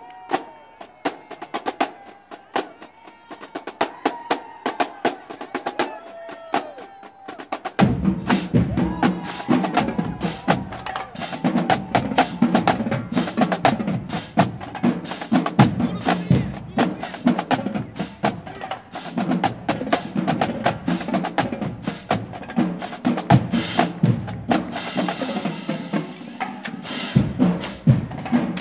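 Marching band drumline playing a cadence: crisp snare hits and stick clicks at first, then about eight seconds in the bass drums and the rest of the drumline come in and it gets louder and fuller.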